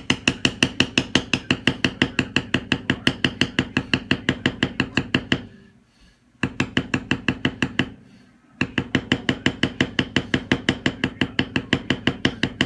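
Leather stamping tool struck by a mallet in rapid, even taps, about five a second, each with a short metallic ring. The tapping pauses briefly twice.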